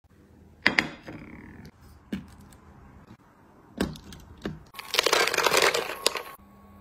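A few sharp clicks and knocks of kitchen prep, a knife against clam shells and a ceramic plate and hands handling a bamboo slat mat, then, the loudest part, about a second and a half of rushing, bubbling water as clams sit in a pan on the heat.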